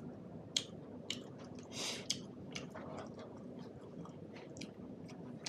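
Close-miked chewing of buffalo meat, with scattered short wet clicks and smacks and a longer hiss about two seconds in.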